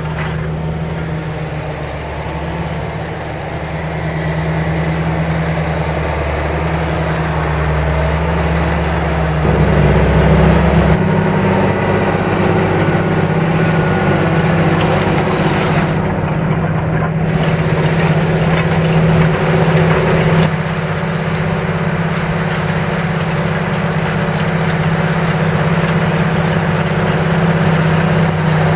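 John Deere 8430 tractor's six-cylinder diesel running steadily while pulling a Köckerling Allrounder 1200 cultivator through the field. The engine sound changes abruptly twice, about a third and two thirds of the way through.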